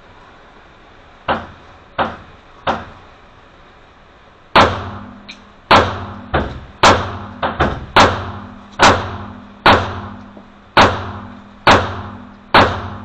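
A 3-inch Springfield EMP 9mm pistol firing 124-grain rounds with a Brake Pedal thumb-leverage device fitted. Three fainter shots come first, then a string of about ten loud shots roughly a second apart, each with a ringing tail.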